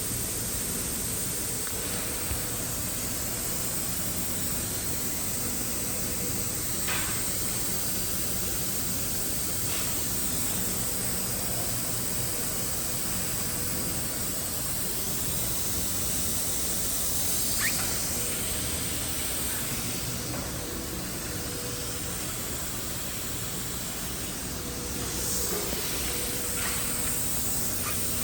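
Direct-driven two-needle cylinder-bed walking-foot industrial sewing machine running steadily, an even whirring hiss with a faint low hum. A few brief higher-pitched squeaks come about 7, 17 and 26 seconds in.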